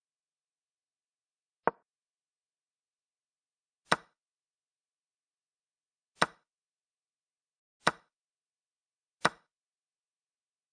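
Online chess board's piece-move sound effects: five short, sharp wooden clicks, one per move as the game is played back, a second and a half to two seconds apart.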